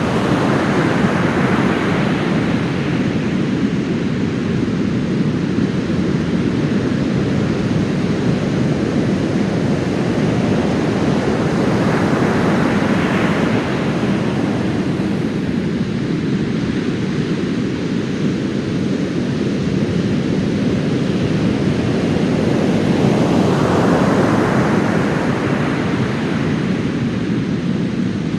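Heavy post-typhoon surf breaking on a sandy beach. A constant low wash of surf runs throughout, with three waves crashing louder: near the start, about 12 seconds in, and around 24 seconds in.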